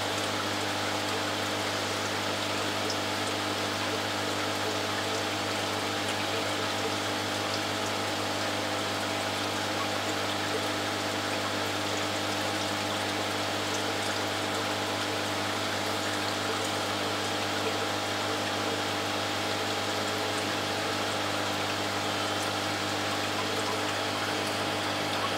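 Aquarium water pump running: a steady hum over the even rush of circulating water.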